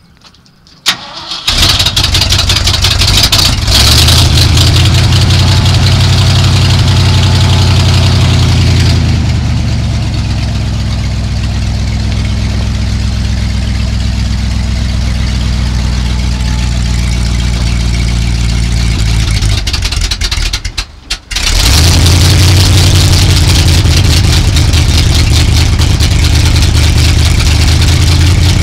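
1976 Ford F600 dump truck's engine starting about a second and a half in, revving briefly, then settling into a steady idle. About twenty seconds in the sound briefly drops away, then the engine runs on, louder.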